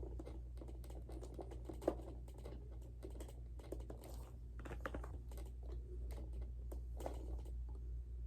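Irregular small clicks, taps and rattles of D-cell batteries and plastic parts being handled and fitted into a Robosapien V2 robot's battery compartment, over a steady low hum.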